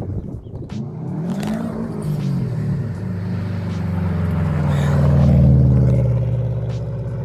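Car engine being driven hard, its revs climbing and dipping, growing louder to a peak about five seconds in and then easing off.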